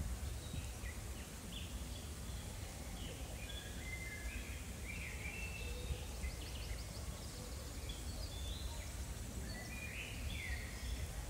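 Small birds chirping in short, high calls scattered throughout, over a steady low background rumble.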